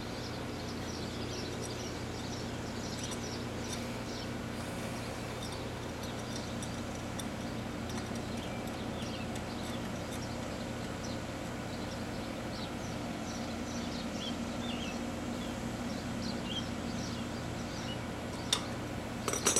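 Steady hum of a running 4-ton R-22 residential air-conditioning condensing unit, compressor and condenser fan going, with birds chirping over it. A couple of sharp clicks near the end.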